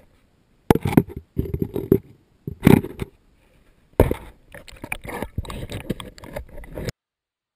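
Water sloshing and splashing against a waterproof action camera held at the water's surface, with knocks and scrapes of handling on the camera housing, in irregular bursts. It cuts off suddenly near the end.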